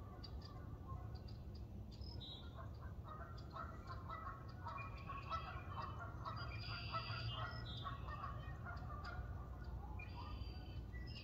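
Faint bird calls, several short pitched calls overlapping, over a steady low rumble.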